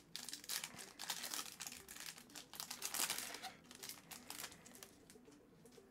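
Foil wrapper of a trading-card pack crinkling as it is torn open, a dense run of crackles that thins out and quietens after about four seconds.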